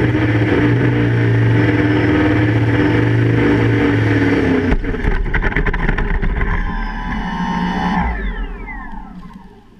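QAV500 quadcopter's motors and propellers running with a steady drone, turning rougher about halfway through, then spinning down with a falling whine as the motors stop near the end.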